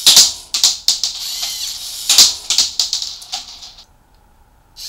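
LEGO Mindstorms NXT servo motors whirring through plastic gears, with sharp clacks as the brick-built gun fires and reloads; the two loudest clacks come about two seconds apart. The whirring stops, and after a short pause it starts again near the end.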